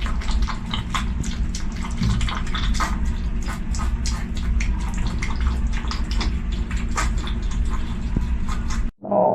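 Armadillo recording: a dense run of crackles and clicks over a steady low rumble, cutting off abruptly near the end.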